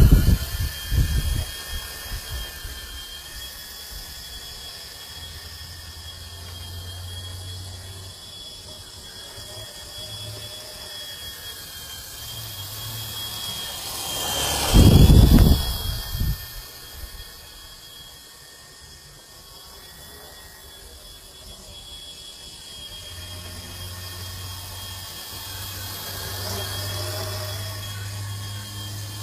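Small RC helicopter running in flight: a steady high-pitched motor whine that wavers slightly, with rotor noise underneath. A loud rush of low noise comes about halfway through.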